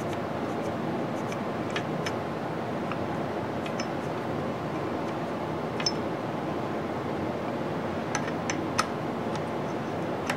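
Scattered light metallic clicks and ticks as an aluminium DRO read-head bracket is shifted by hand against a lathe carriage and a hex key is fitted to its screw, over a steady background hum.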